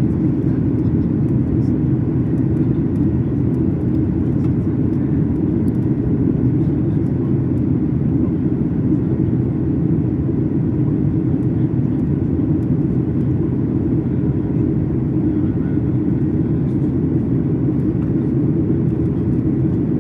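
Steady, loud drone of a Boeing 737 MAX 8's CFM LEAP-1B jet engines and airflow, heard from inside the passenger cabin, holding even without any rise or fall.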